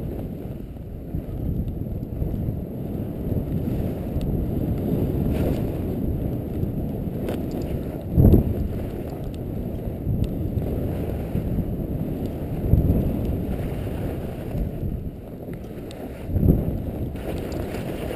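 Wind buffeting an action camera's microphone as a skier descends on skis over snow: a steady low rumble with three brief louder surges, the strongest a little before halfway.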